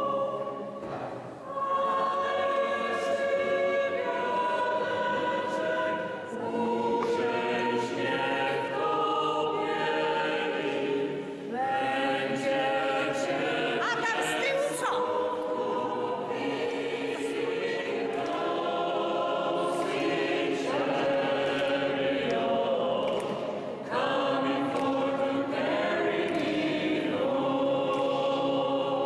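Mixed choir of men's and women's voices singing, in phrases broken by short pauses for breath, with the echo of a large church.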